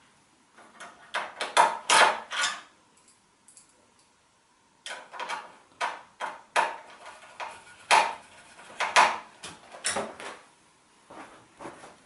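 Screwdriver and hands working on the metal chassis and shielding of an opened all-in-one PC, making two spells of irregular clicks and knocks; the second spell is longer.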